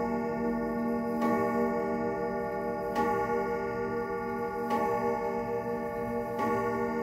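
Junghans grandfather clock striking on its chime rods: four evenly spaced strokes, about one every 1.7 seconds, each ringing on with a long sustain that overlaps the next.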